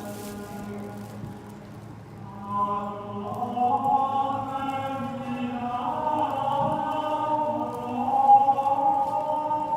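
Choral music: voices singing long held notes that swell louder about two and a half seconds in.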